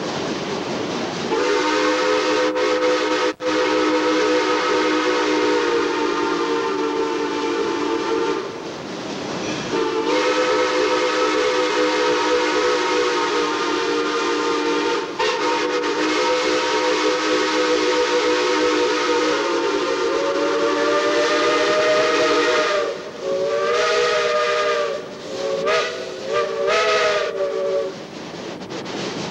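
Steam locomotive's chime whistle, sounding several notes at once as a chord. It gives two long blasts, the second rising slightly in pitch near its end, then a series of short toots.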